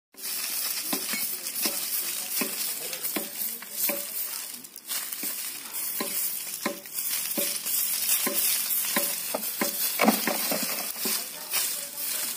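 Bundle broom of dry stalks sweeping bare dirt ground in short repeated strokes, roughly three every two seconds, with a brief pause about four and a half seconds in.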